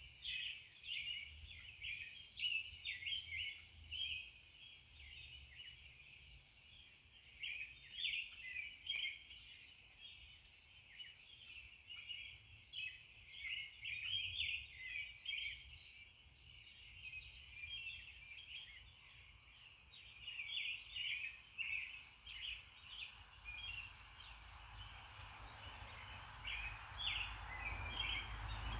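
Rapid high chirping, bird-like, runs throughout. Near the end a hand-held immersion blender starts whirring in the pot of cooked saag, with a rising hum.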